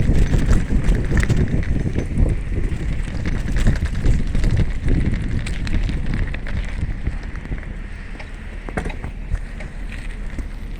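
Bicycle rattling and clattering as it rides over bumpy, rough ground, with wind buffeting the microphone. The rattling grows quieter after about seven seconds.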